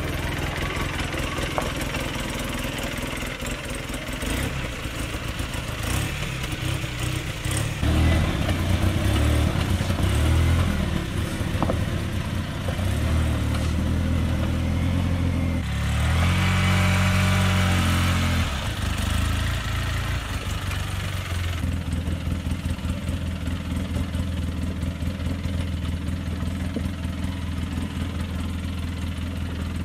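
Polaris Ranger 6x6 side-by-side's engine running at low speed as the heavily loaded machine crawls down a steep, rocky trail. The engine note rises and falls a few times with the throttle.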